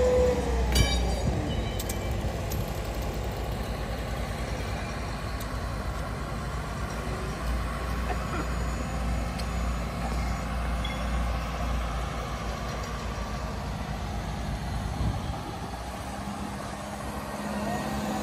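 Heavy truck engine running with a steady low rumble that eases off about fifteen seconds in. There is a sharp click about a second in.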